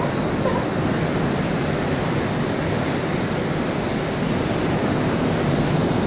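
Steady rushing of wind and sea water heard from an open boat at sea.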